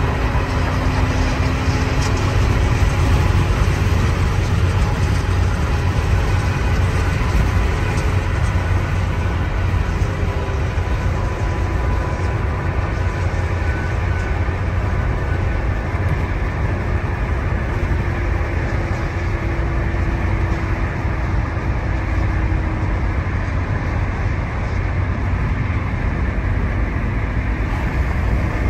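Steady low rumble of road and wind noise from a car driving at speed.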